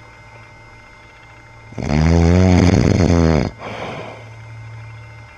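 A sleeping man snoring: one long, loud, rough snore about two seconds in, followed by a softer breath, over a steady low hum.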